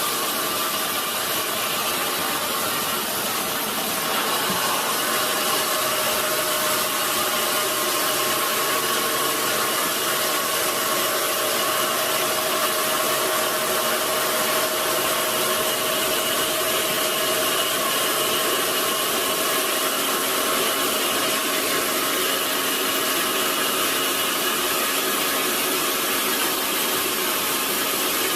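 Sawmill machinery running steadily: a constant noisy hum with a few faint steady tones, getting slightly louder about four seconds in.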